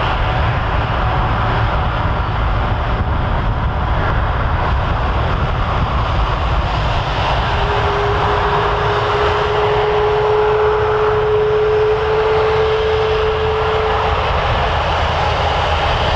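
Boeing 777 freighter's GE90 turbofan engines running as it taxis and turns onto the runway: a steady jet rumble and hiss. From about halfway through, an engine whine comes in for several seconds, rising slightly in pitch.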